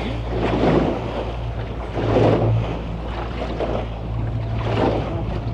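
Boat engine running with a steady low drone under the rush of rough sea and wind buffeting the microphone.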